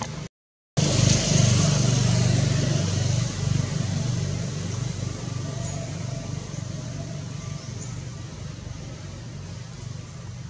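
A motor vehicle's engine hum, starting suddenly after a brief gap in the sound, loudest for a couple of seconds and then slowly fading away.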